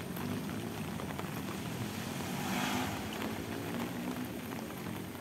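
Steady rain hissing on a wet paved lane, over the low, steady running of a motorbike engine. The hiss swells briefly about two and a half seconds in.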